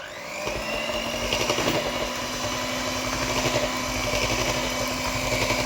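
Electric mixer switched on and running steadily, beating a runny batter of butter, egg, sugar and milk; its whine rises as the motor spins up in the first moment.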